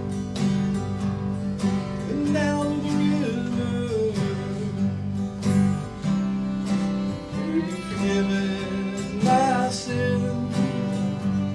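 Acoustic country band playing an instrumental intro: two acoustic guitars strumming steady chords while a fiddle plays the lead melody, sliding between notes.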